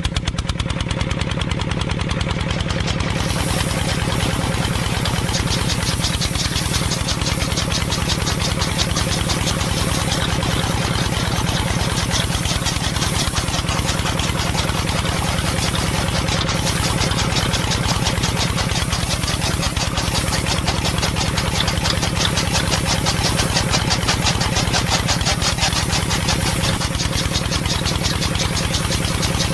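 Small motor driving a miniature model rice thresher through a rubber belt, running steadily with a fast, even pulse and a low hum.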